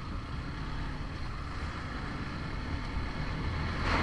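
Steady engine and road noise from a vehicle driving along a highway, with some wind noise, and a brief louder rush near the end.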